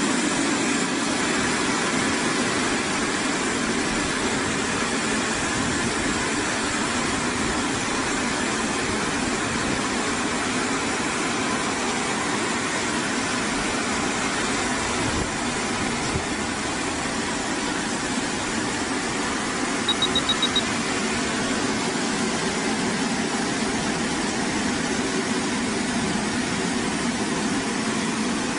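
Five-brush automatic car washing machine running: a steady, even mechanical noise. About two-thirds of the way through comes a short run of rapid high beeps.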